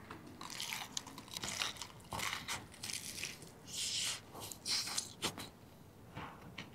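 Biting into and chewing a fried chicken leg on a flatbread, close to the microphone: irregular crunches of the crisp fried coating mixed with wet chewing.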